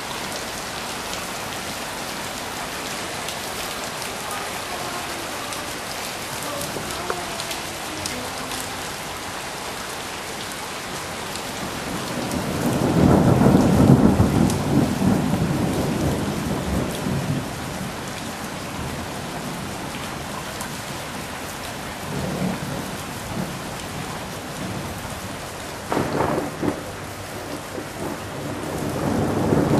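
Steady rain in a thunderstorm, with a long rumble of thunder swelling up about halfway through and fading, a smaller rumble later, a sharp crack near the end, and another roll of thunder building at the very end.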